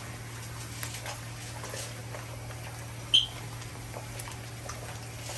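Pork skin chicharron deep-frying in hot oil, with scattered small crackles and pops over a steady low hum. One sharp metallic clink about three seconds in.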